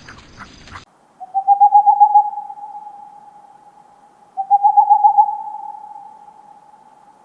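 Two long, even hoots at one pitch, each starting with a quick flutter and fading out slowly.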